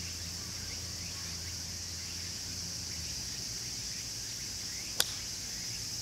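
Steady high-pitched chirring of insects, with a low hum under it that stops about three seconds in, and one sharp click near the end.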